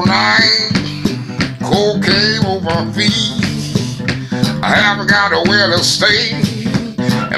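Acoustic guitar strummed and picked in a blues pattern, with a man's voice singing over it at several points.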